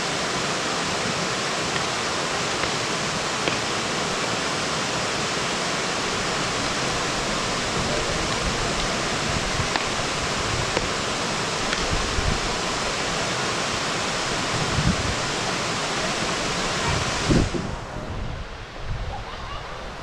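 Steady rushing of a small creek waterfall spilling over rock ledges, with a few low thumps. About 17 s in the rush suddenly drops in level and loses its hiss.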